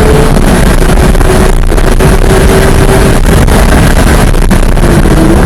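Porsche 911 GT3 (991.1) naturally aspirated flat-six running hard at high revs under load on track, heard inside the cabin, loud and steady, with a dense bed of road and wind noise. The engine pitch holds nearly level, dipping slightly just after the start and again near the end.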